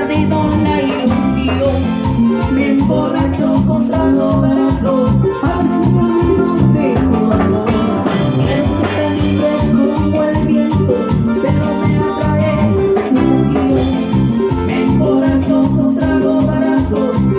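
Live band playing Latin dance music through a loud PA: electric bass, keyboards and drums with hand percussion, over a steady beat.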